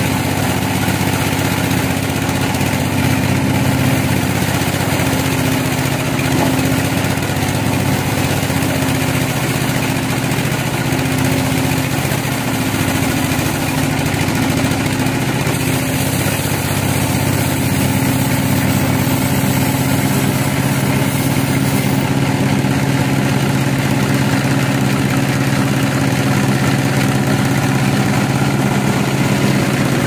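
Band saw mill running steadily, its drive giving a low, even drone while the blade saws through a large log.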